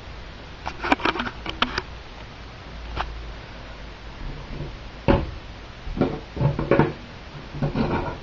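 Small circuit boards being handled on a tabletop: a series of light clicks and knocks as the boards are picked up, moved and set down, with one sharper knock about five seconds in.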